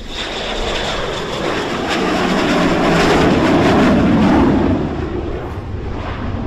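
Aircraft engine noise as a plane passes close by, a loud rush that builds to a peak about four seconds in and then eases off.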